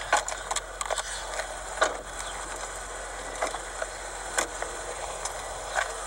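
Scattered knocks and rustles from a handheld camcorder being moved around inside a car, over steady background noise.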